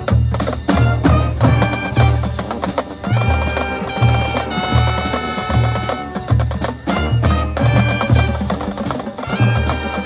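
Marching band playing: held brass and woodwind chords over drums and a pulsing bass line.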